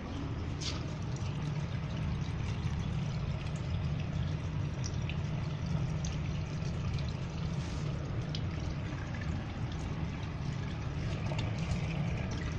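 Tap water running steadily into a ceramic washbasin and draining down through the waste and bottle trap: a continuous trickle with a low rumble, run to check the trap for a leak.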